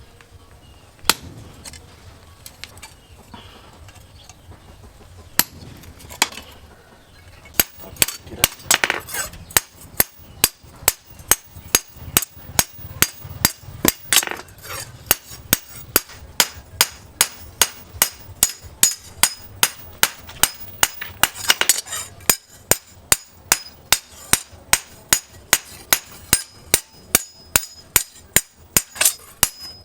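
A hand hammer striking the knife's steel, which comes from an old chainsaw: a few scattered blows at first, then about seven seconds in a steady run of sharp, ringing strikes at about three a second.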